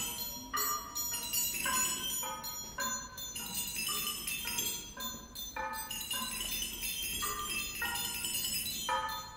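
Small metal percussion instruments struck one after another, about two strokes a second. Each stroke is a short, bright, ringing note at a different pitch. A faint held tone runs underneath.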